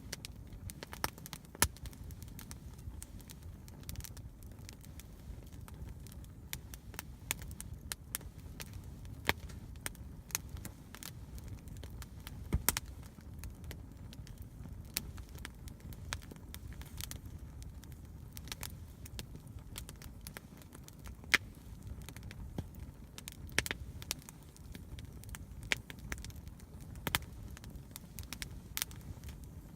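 Campfire burning: a low, steady rush of flame under irregular sharp crackles and pops, with a few louder snaps.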